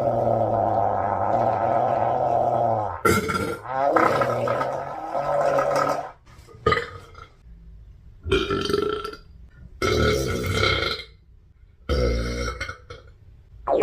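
A person burping repeatedly. One long, drawn-out, low burp lasts until about three seconds in, followed by about five shorter burps with brief pauses between them.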